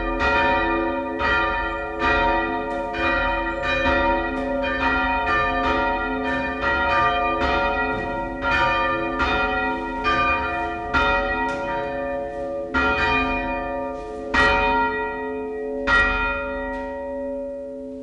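Two church bells rung by hand with ropes, their strokes overlapping about every half second in a ringing wash of bell tones. The strokes thin out near the end, with two last loud strokes, and then the bells' hum fades as the ringing is brought to a stop.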